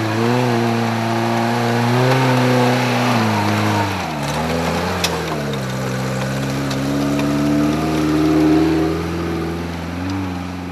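Off-road 4x4 engine revving under load, its pitch wavering, dropping sharply about four seconds in, then climbing again. A sharp click about five seconds in.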